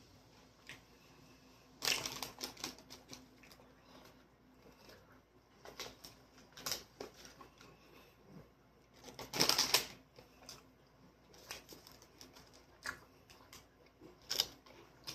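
Close-up eating sounds: crunchy bites and chewing of sandwich and chips, crackling in short bursts a few seconds apart, the loudest near the middle.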